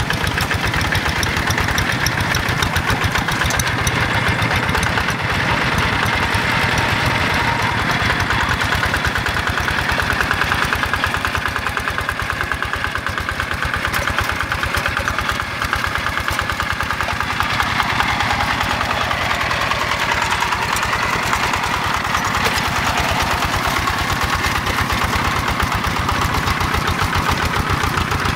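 Single-cylinder Yanmar diesel engine of a Quick G1000 two-wheel hand tractor running steadily with a fast, even chug while the tractor works, its cage wheels in a flooded paddy.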